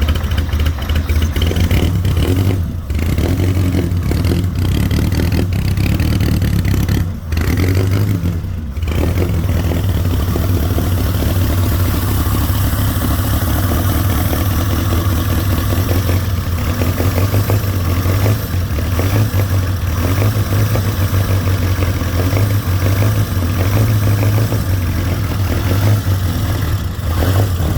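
1926 Bugatti Type 37's four-cylinder engine running loudly with an uneven throb, the revs dropping briefly about 3, 7 and 9 seconds in.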